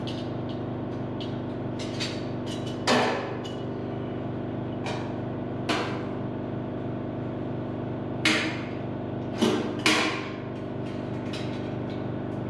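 Sharp metallic clanks and knocks as clamps and a Farmall M's sheet-steel grill are handled against a steel mesh work table while a copper backing piece is clamped in place. There are about five louder knocks, most of them in the second half, over a steady background hum.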